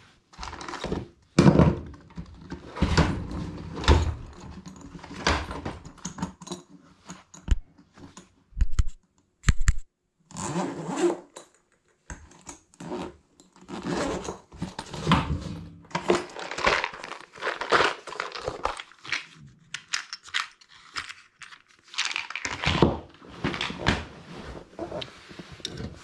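Hand tools and low-voltage control wire being handled while a jumper wire is made: a string of irregular clicks, scrapes and clatters.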